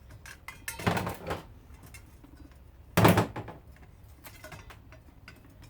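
Handling clatter from a garbage disposal being taken apart: scattered clicks and light knocks, a short rattle about a second in, and one loud clunk about three seconds in.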